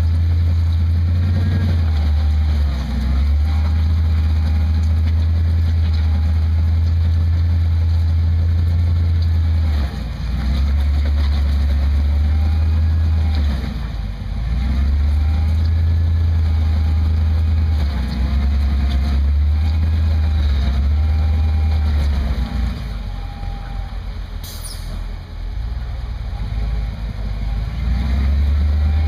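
Rock-crawler buggy's engine running under load as it crawls up a rock ledge, a steady low hum that eases off briefly twice and drops lower for several seconds near the end before pulling again.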